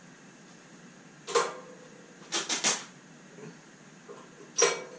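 Sharp knocks and clinks of objects being handled in a workshop: one, then three in quick succession, then another. The first and last each leave a brief metallic ring.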